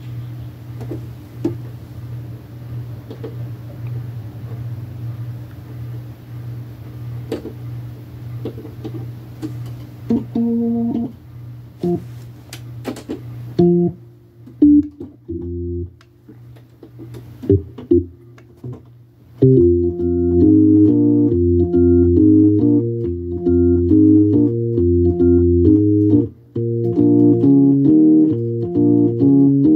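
Hammond organ. It opens with a steady low hum and scattered clicks, then plays a few short stabbed chords about ten seconds in. From about twenty seconds it settles into rhythmic chords over a moving bass line.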